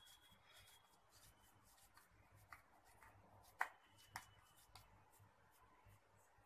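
Near silence: faint wet rubbing and a few soft clicks from hands pressing a water-soaked bread slice around potato filling and shaping it into a roll. The clearest click comes about three and a half seconds in.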